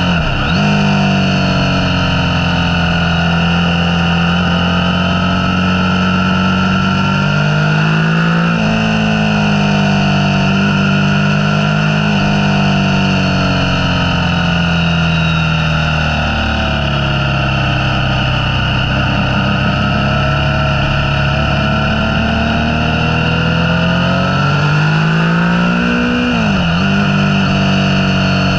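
Motorcycle engine running under way, its pitch rising and falling with the throttle. There are three quick breaks in pitch: just after the start, about a third of the way in, and near the end.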